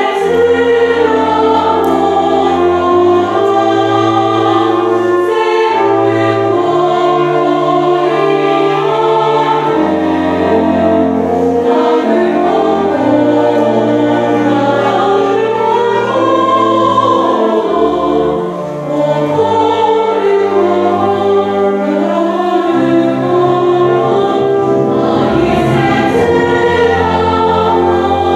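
Female choir singing, accompanied by a school wind band with a double bass holding sustained low notes.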